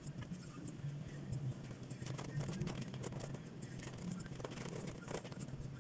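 Rain drops tapping irregularly on a car's roof and windshield, heard from inside the cabin over a low steady hum.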